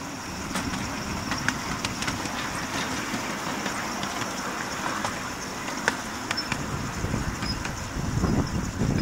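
Miniature ride-on railway locomotive running along its track: steady rolling noise with sharp clicks from the wheels over the rail joints and a faint steady high whine. A louder low rumble comes in near the end.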